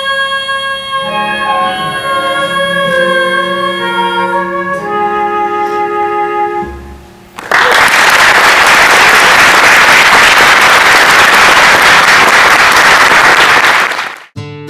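A stage song's closing chords ring out for several seconds. Then loud, even audience applause runs for about six seconds and cuts off abruptly.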